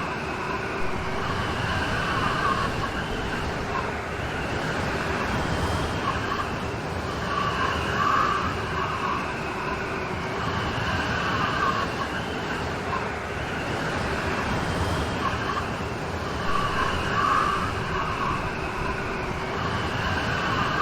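Steady heavy rain falling, an even dense hiss. A wavering higher-pitched sound swells and fades over it about every nine seconds.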